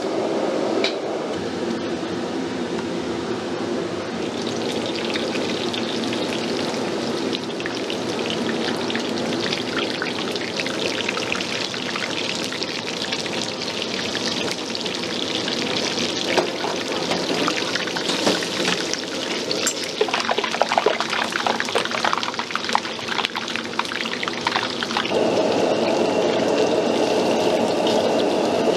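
Battered pieces deep-frying in a wok of hot oil: a steady sizzle full of fine crackling. A steady low hum sits underneath and grows louder near the end, with a faint high whine.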